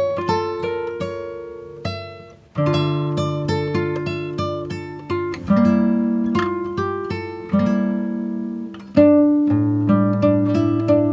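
Background music on acoustic guitar: plucked notes and chords that each ring and fade, with a short pause about two and a half seconds in before the playing resumes.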